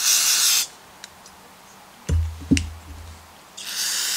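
Aerosol cleaner sprayed in short hissing blasts onto a small-engine carburetor: one burst stops about half a second in, and another starts near the end. In the pause between, a couple of light clicks and a short low thump.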